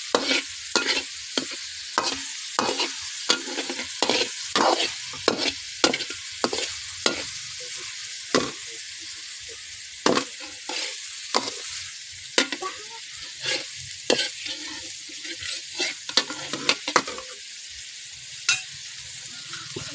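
Food sizzling as it fries in a pan, with a spatula or ladle stirring and scraping, knocking against the pan about twice a second at first and more sparsely later on.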